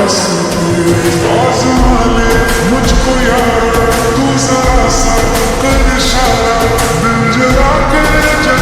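Bollywood-style love song playing as a ringtone: a melody with gliding notes, joined by a deep bass beat about two seconds in.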